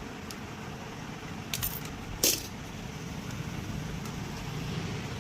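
A few light metallic clinks, the sharpest and loudest about two seconds in, over a steady low background hum.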